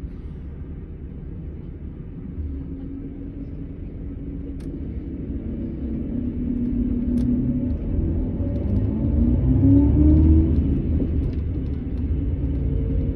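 Setra S 431 DT double-decker coach's diesel engine running with a low rumble. Its pitch and loudness climb from about two seconds in to a peak around ten seconds in, then drop back.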